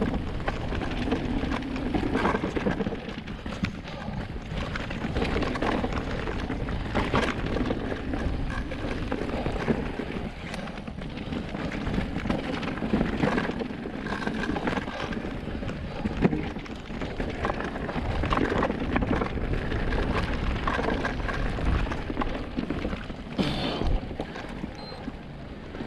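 Orbea Rise H15 electric mountain bike rattling down a wet rocky trail section: tyres over rock with frequent knocks and rattles from the bike, with wind rushing on the microphone.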